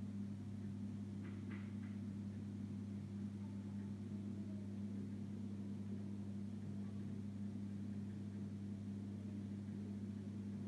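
Steady low electrical hum with a faint hiss underneath, and a few faint clicks about a second and a half in.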